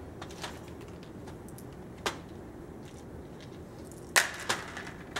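Plastic beads clicking against a plastic mesh sieve tray as they are picked out by hand: a few scattered sharp clicks, the loudest two close together about four seconds in.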